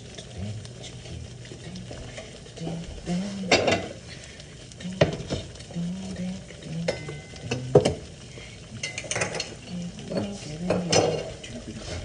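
Eggs sizzling in a frying pan, a steady hiss, broken by several sharp clinks and knocks of cookware as a glass casserole dish is handled and set on the glass stovetop. The loudest knocks come about three and a half, five and eight seconds in, with more clatter near nine and eleven seconds.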